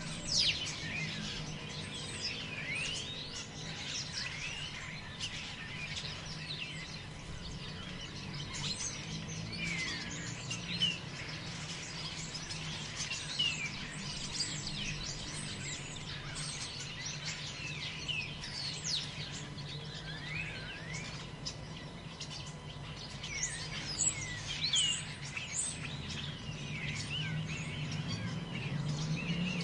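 Several forest birds chirping and calling all the way through, short quick notes sliding up and down, over a steady low rumble.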